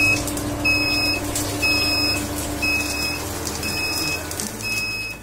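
Electronic timer alarm of an Elgi Ultra Perfect+ wet grinder: a high beep repeating about once a second, six times, over a steady low hum.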